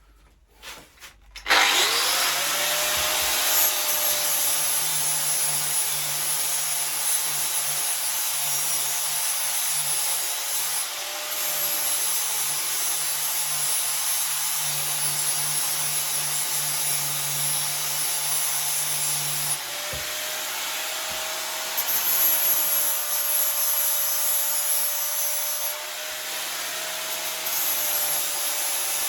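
Angle grinder starting about a second and a half in, spinning up, then grinding down fresh welds on a thin steel pit bike frame; its whine wavers and dips briefly as the disc is pressed into the metal.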